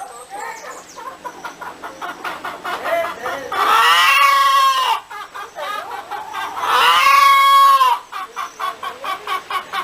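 Hen clucking in quick runs of short clucks, twice breaking into a long drawn-out call, about a third of the way in and again near two-thirds through.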